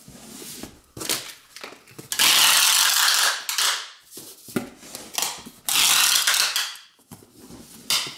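Clear packing tape being pulled off a handheld tape gun and run over a cardboard box. There are two long, loud rasping pulls, about two and six seconds in, and another begins at the very end, with short knocks from handling the box between them.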